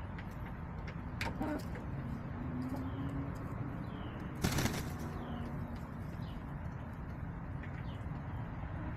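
Backyard hens making low, drawn-out crooning calls, with several short high falling chirps and a brief loud rustle, like wings flapping, about four and a half seconds in.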